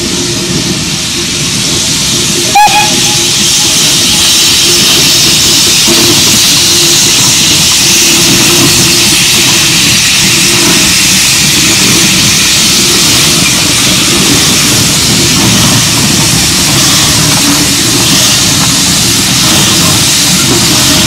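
BR Standard Class 4MT 2-6-4 tank locomotive No. 80072 working a passenger train past, a loud, steady rush of steam exhaust and running noise. A sudden knock with a short pitched blip comes about two and a half seconds in.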